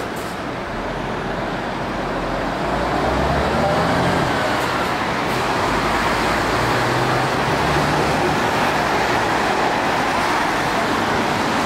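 City bus pulling away and accelerating, its engine note climbing in steps, with steady tyre and traffic noise on a wet road.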